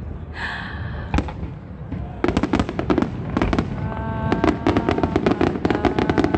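Aerial fireworks going off: a single bang about a second in, then from about two seconds a dense run of rapid crackling pops from crackle-effect shells.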